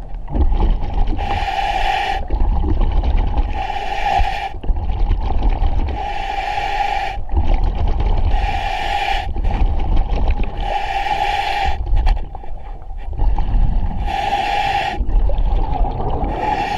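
Diver breathing underwater through a demand regulator: a regular breath about every two and a half seconds, each a second-long hiss with a steady hum in it, over a low rumble.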